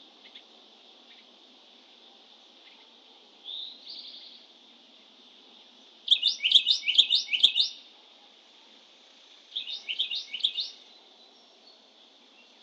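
A songbird singing: a short note, then two phrases of rapid repeated notes, the first loud and the second shorter and quieter, over a faint steady high-pitched hum.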